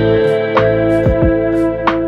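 Background music: held chords over a steady beat of light percussion about twice a second, with a chord change at the start.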